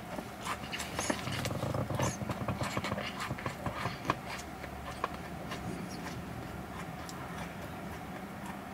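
Close-miked chewing and mouth sounds of eating, with many small wet clicks, and a low, drawn-out burp from about one to three seconds in.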